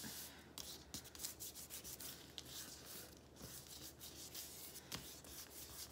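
Hands rubbing and pressing over a folded sheet of paper on a stone countertop: a faint papery swishing in short, irregular strokes. The rubbing presses the wet paint inside the fold so that it prints onto both halves.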